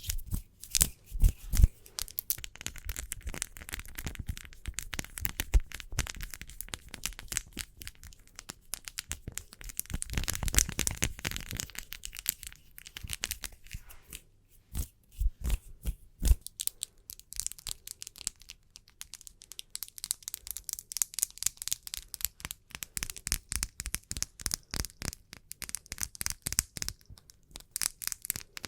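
Close-miked ASMR fingernail tapping and hand rubbing: rapid, irregular taps and clicks throughout, with a louder stretch of continuous rubbing hiss about ten seconds in.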